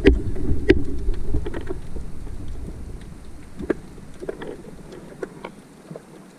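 Underwater sound heard through a camera housing during a breath-hold dive: a muffled low rush of moving water with scattered sharp clicks. The loudest clicks come at the start and under a second in, and the whole sound fades away toward the end.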